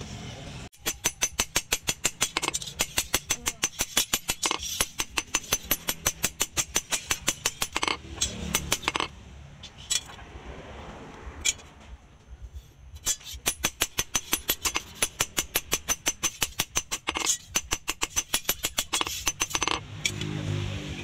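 Hand hammer striking a steel sword blade on a round steel post anvil in a quick, even run of ringing metallic blows, several a second. The blows pause about 9 s in, with only a few single strikes, and pick up again at the same pace about 13 s in.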